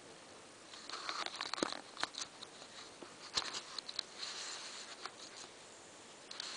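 Computer keyboard typing: quick bursts of clattering keystrokes starting about a second in, pausing briefly, resuming for another second or so, then a short burst near the end.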